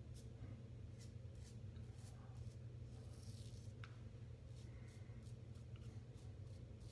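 Feather AS-D2 stainless safety razor scraping faintly through lathered stubble in a series of short strokes on the against-the-grain pass, over a steady low hum.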